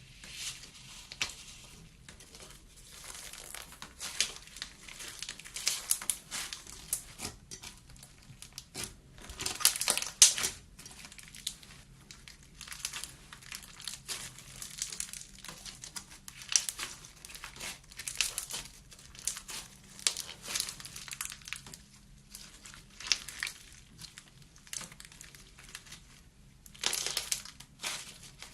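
Slime being handled, giving dense, irregular crackles and pops, with louder clusters about ten seconds in and again near the end.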